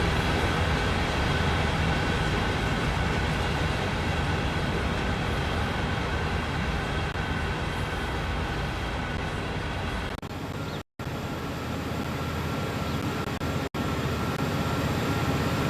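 CSX freight train rolling past, a steady rumble of steel wheels on rail with faint high steady tones over it. About ten seconds in, the low rumble drops away and the sound cuts out twice for a moment.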